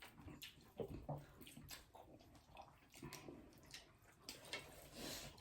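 Faint wet eating sounds: chewing and lip smacks, a string of short irregular clicks and squelches.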